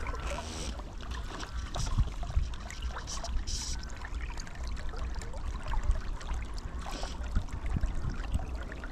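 River water flowing and lapping, with a steady low rumble under it and a few brief hissing bursts about three seconds apart.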